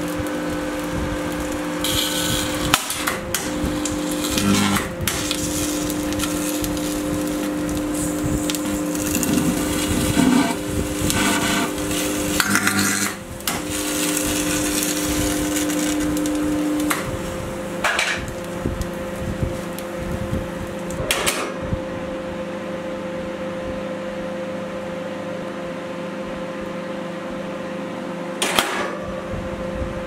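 Microwave oven running at several times its rated power, with a steady electrical hum, while a circuit board burns inside with crackling, snapping and hissing. One strong tone in the hum cuts out a little past halfway. After that, the hiss fades and only a few sharp cracks remain over the hum.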